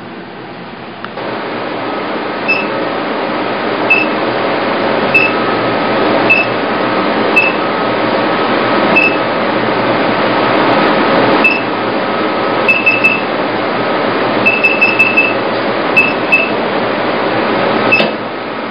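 Touchscreen control panel of an E-light (IPL + RF) beauty machine beeping at each button press as the energy settings are stepped up. The beeps are short and high, single ones about a second apart at first, then quick runs of three to five. Underneath is a steady fan-like rush that comes on about a second in and stops near the end.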